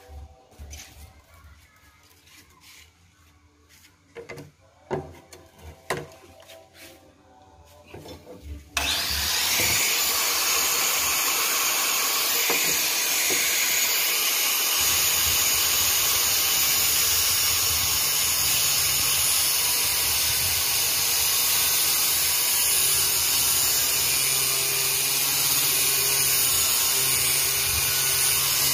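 Electric angle grinder starting up about nine seconds in and running steadily as it grinds the edge of a bent PVC piece, a loud even hiss over a low motor hum. Before it starts there are only a few light knocks of handling.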